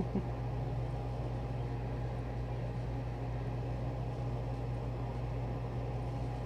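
Steady low hum with a faint even hiss, as from a fan or other room machinery, and one brief soft bump right at the start.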